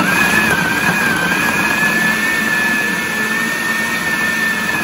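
Electric countertop food processor motor switched on and running steadily as it grinds raw chicken with cooked potatoes and carrots. It makes a steady high whine over a coarse whirring.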